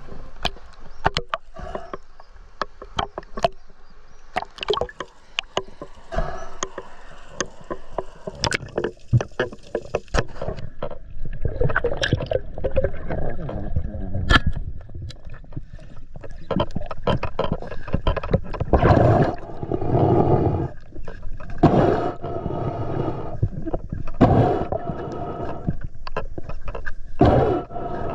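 Water sloshing and gurgling against a diver's camera, with scattered sharp clicks through the first half. From about two-thirds of the way in come repeated swells of water noise every second or two.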